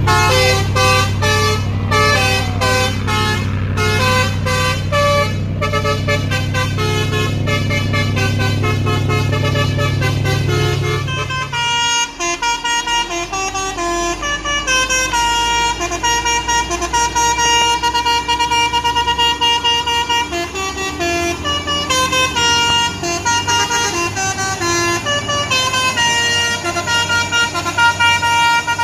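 Musical multi-tone truck air horn playing a tune, its notes changing quickly at first and then held longer, over a heavy truck's diesel engine running low. The engine drops away abruptly about twelve seconds in.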